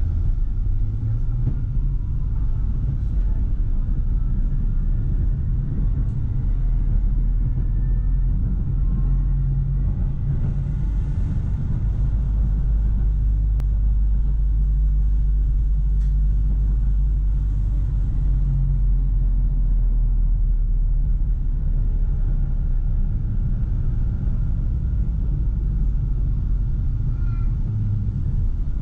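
Tram heard from inside at the front, running on rails with a steady low rumble. A faint whine rises in pitch over the first ten seconds or so as it pulls away from a stop and gathers speed.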